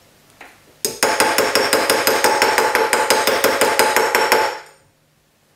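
Rapid mallet blows on a metal cuff bracelet over a steel bracelet mandrel, several taps a second with a steady metallic ring underneath, forming the flat strip into a cuff. The tapping starts about a second in and stops near the end.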